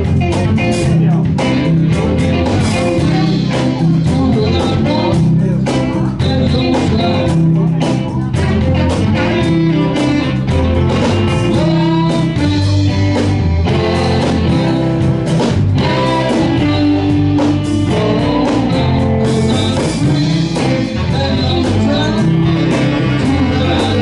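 Live band playing a blues number on electric guitars and drum kit, with a steady beat and a bass line underneath.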